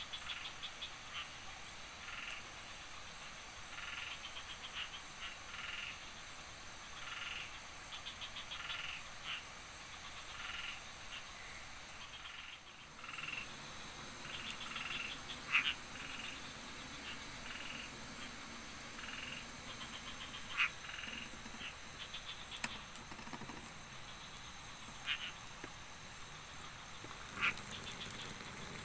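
Frogs calling: short croaks and quick rattling trills overlapping every second or so, with a few louder single calls standing out.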